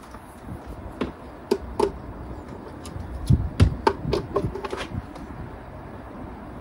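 Hard plastic clicks and knocks as a three-pin plug is pushed into an outdoor weatherproof wall socket and handled there: a few clicks about a second in, then a quick run of them with some dull bumps between about three and five seconds in.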